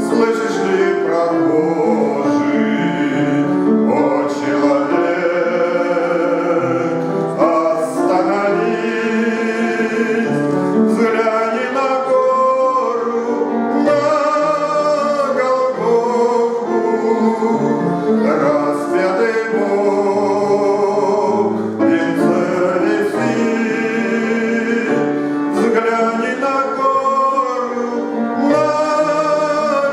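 A man singing a Christian hymn in a sustained, melodic voice with instrumental accompaniment.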